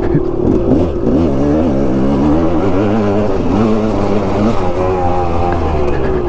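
2006 KTM 200 XC dirt bike's 200 cc single-cylinder two-stroke engine running under throttle while riding, its pitch rising and falling several times as the rider works the throttle.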